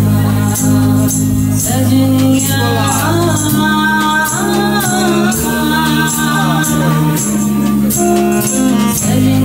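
Live band playing a Sufi folk-fusion song: a woman sings a bending melody while shaking a tambourine in a steady rhythm, over held electric bass notes, violin, electric guitar and drums.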